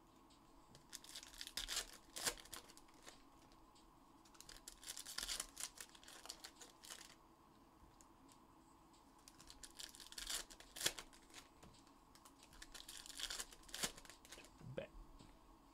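Trading card packaging, foil pack wrappers and shrink-wrap, being torn open and crinkled by hand in four separate bursts.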